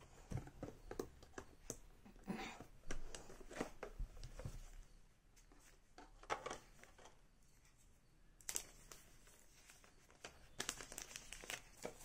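Cardboard phone box, paper insert and packaging being handled: faint rustling with scattered light knocks and clicks as box parts are lifted and set down, busiest again near the end.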